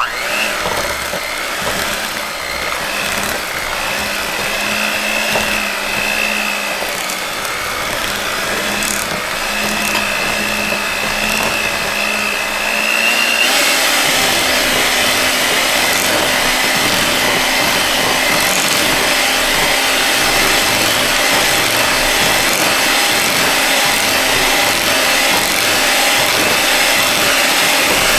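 Electric hand mixer switched on and running, its beaters whirring through thick cheesecake batter and eggs in a glass bowl. About halfway through the motor steps up to a higher pitch and runs louder, as at a faster speed setting.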